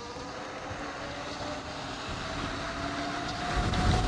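72-volt Kaabo Wolf King electric scooter's motor whining and rising steadily in pitch as the scooter accelerates, over wind rushing on the microphone. A low wind buffet swells near the end.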